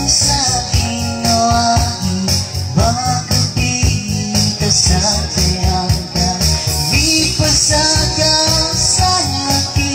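A man singing a Moro song into a microphone, backed by an electronic keyboard playing a steady rhythmic accompaniment.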